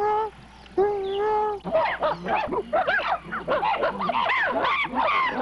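Chimpanzees calling: two long, steady pitched calls, then from about two seconds in a rush of overlapping high calls that rise and fall, the agitated sound of chimps squabbling over bananas.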